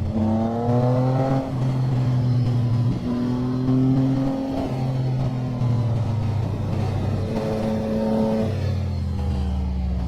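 Motorcycle engine pulling hard under acceleration, its revs climbing and breaking off several times as it shifts gear, then falling lower near the end as it comes off the throttle.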